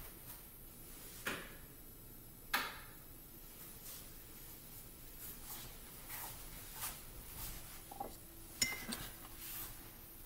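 Faint kitchen clatter: a few sharp knocks and clinks of household items being handled and set down, the loudest about a second in, again at two and a half seconds, and near the end.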